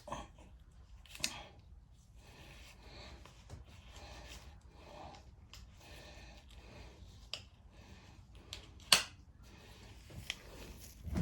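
Scattered small clicks and light rustling of tools and small parts being handled during mower fuel-line work, with one sharp click about nine seconds in.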